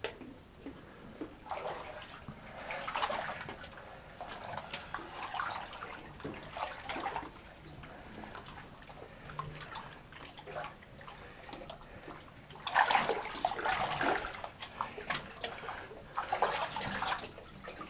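Water sloshing and splashing as a person wades through flood water in a mine tunnel, coming in uneven surges, the loudest stretch a little over two thirds of the way in.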